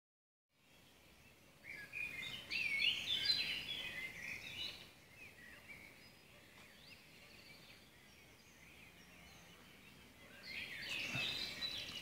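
Songbirds singing in the early-morning dawn chorus: two loud bursts of fast, high warbling song, one about two seconds in and one near the end, with fainter calls in between.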